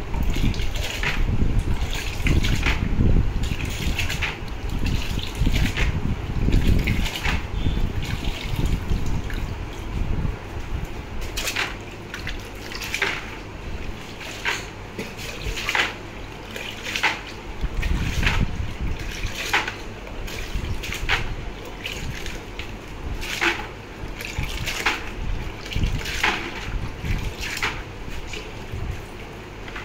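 A bundle of freshly silver-plated pieces being dipped and swished through buckets of rinse water. Water streams and splashes off them at first, then come repeated short splashes and sloshing, about one a second.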